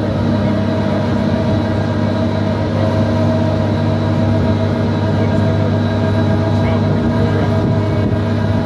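Heavy diesel engine of a Demag AC 300 mobile crane running steadily at a constant pitch while the crane holds and places a 40-ton concrete beam.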